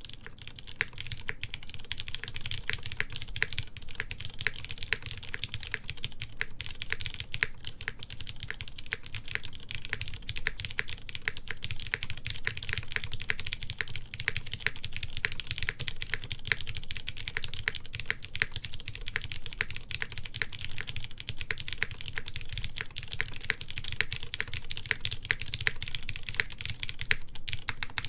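Continuous fast typing on a mechanical keyboard with lightly lubed Cherry MX Black linear switches, GMK keycaps and a forged carbon fiber plate (Smith and Rune Iron165 R2): a dense stream of keystroke clacks that starts right away.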